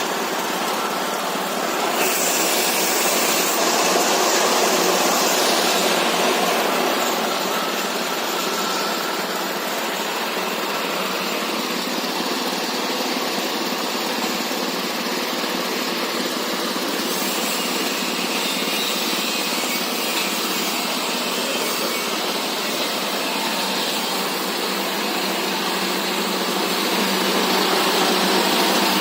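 Animal-feed pellet mill driven by a 22 hp diesel engine, running steadily with a dense mechanical din. A brighter hiss rises over it for a few seconds about two seconds in.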